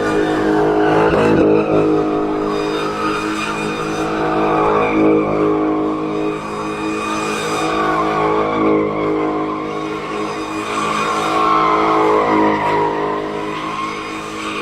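Car engine held at high revs while the tyres squeal in a long, wavering screech, as in a drift or burnout.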